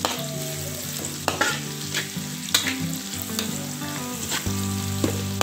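Shredded aromatics, garlic and dried red chilies sizzling in hot oil in a wok, stir-fried with a spatula that scrapes and clinks against the pan several times.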